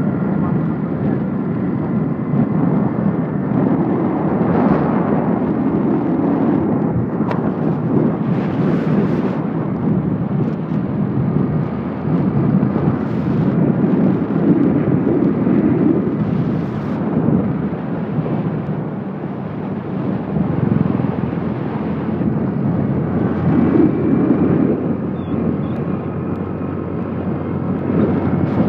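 Motorcycle on the move: the engine running under a steady rush of wind and road noise on the microphone.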